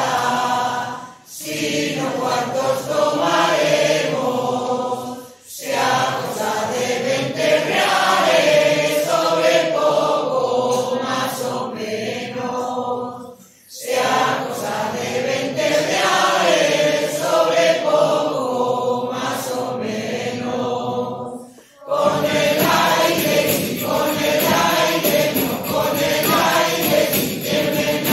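Mixed choir of men and women singing together, in long phrases broken by brief pauses for breath.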